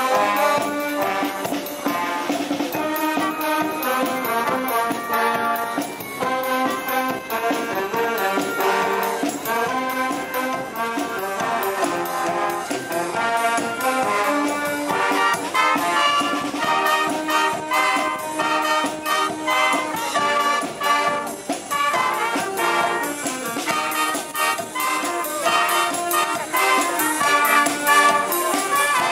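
Brass band playing a lively tune in full, trumpets and trombones carrying the melody, with percussion keeping a steady beat.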